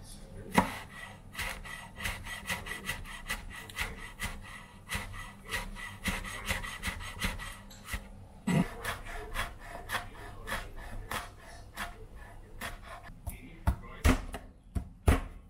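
Kitchen prep sounds: a utensil scraping and tapping in quick, irregular strokes, with a few sharper knocks near the end.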